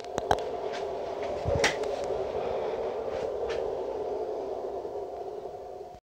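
A person getting up from a chair and moving right up to the camera: a few light knocks and clicks over a steady noisy hum, all cut off suddenly near the end.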